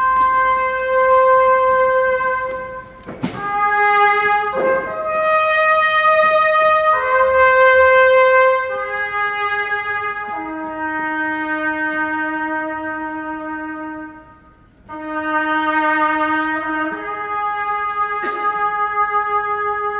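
Solo trumpet playing a slow melody of long held notes, with a short break about three-quarters of the way through.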